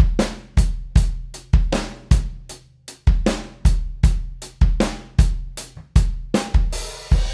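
A live-recorded drum kit playing a steady groove, kick and snare hits about two a second with hi-hat, the snare enhanced with blended-in replacement snare samples. A cymbal crash comes near the end.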